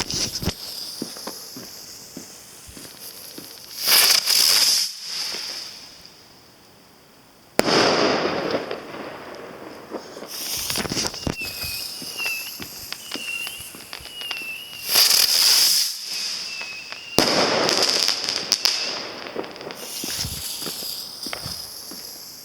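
Maxsem Superblitz rising spinner fireworks (circoblitz) going off one after another, each spinning up with a loud high hiss. Sudden loud blasts come about eight seconds in and again near seventeen seconds, with a warbling whistle-like tone from about eleven to sixteen seconds and scattered crackles between.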